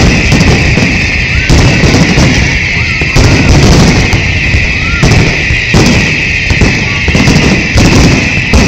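Fireworks display: loud bangs of exploding aerial shells about every one to two seconds, five heavy ones in all, over continuous crackling and hissing from the rising effects.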